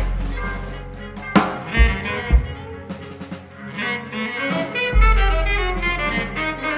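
Jazz instrumental passage with no singing: saxophone phrases over sparse drum hits, with a sharp strike about a second and a half in and deep low booms at the start and again about five seconds in.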